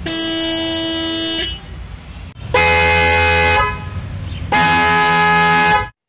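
Tata Tiago's original single-tone electric horn sounds once for about a second and a half. Then newly fitted Hella twin-tone horns sound twice, each for about a second, louder and fuller with two pitches together.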